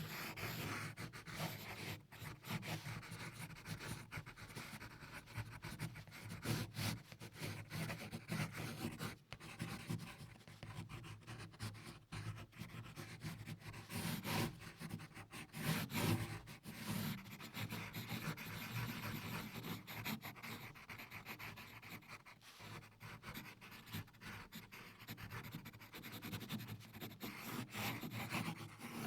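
Pencil drawing on paper: quick, irregular sketching strokes, the graphite scratching and rubbing across the sheet.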